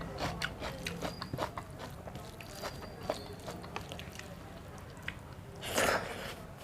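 A person chewing a meal of rice and egg curry close to the microphone, with many small wet mouth clicks. A brief, louder noisy sound comes near the end.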